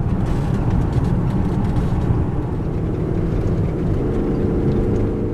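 SUV driving on a paved highway, heard inside the cabin: a steady rumble of engine and tyre noise, with a droning engine tone added about four seconds in.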